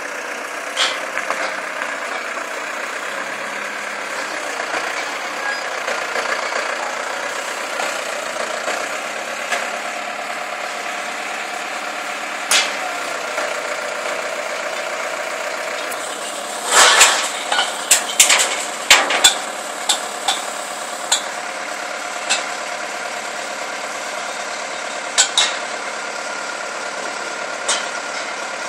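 Forklift engine running steadily as its hydraulic clamp attachment handles a bundle of steel pipes. A cluster of sharp metallic clanks comes about two-thirds of the way through, with a few single knocks after it, as the steel pipes knock together.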